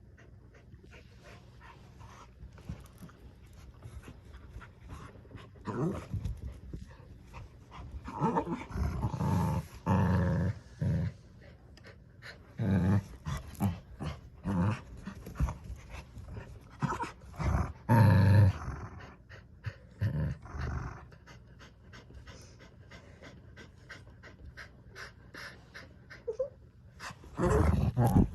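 Two dogs, a Lhasa Apso and a Bernedoodle, growling in repeated bouts as they play tug-of-war over a toy, with panting in between.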